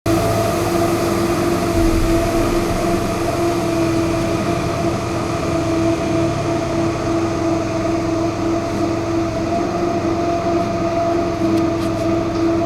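A machine running with a steady, unchanging drone and a constant pitched hum. It starts abruptly.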